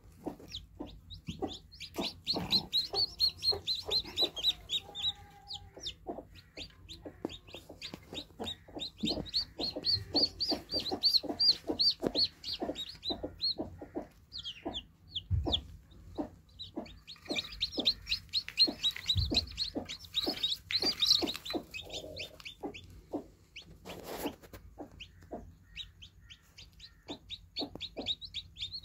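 Newly hatched chicks peeping in quick high runs, over a steady series of low clucks from a hen, two to three a second.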